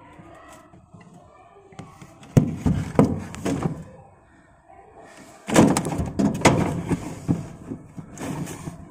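Hollow knocks and thumps from hands working inside a washing machine's plastic tub around the newly fitted buffer. There is a small group of knocks about two and a half to three and a half seconds in, then a louder run of clattering knocks from about five and a half seconds in.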